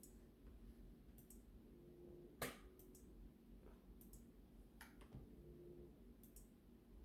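Near silence broken by a few scattered clicks at a computer, one louder about two and a half seconds in.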